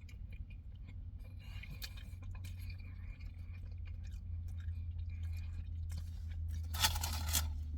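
A person chewing a mouthful of soft pretzel and Italian sausage, with small scattered mouth clicks, over a steady low hum. A brief louder, breathy or rustling noise comes near the end.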